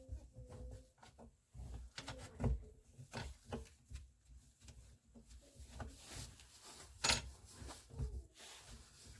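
Irregular clicks, knocks and rubbing of hand work with tools and parts, spaced unevenly with short pauses between.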